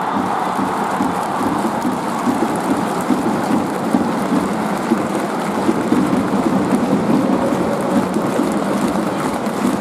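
Stadium crowd making a steady, dense din of clapping and noise as a penalty is awarded and the ball is set on the spot.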